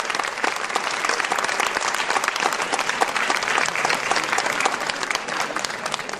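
Audience applauding: dense, steady clapping from a crowd.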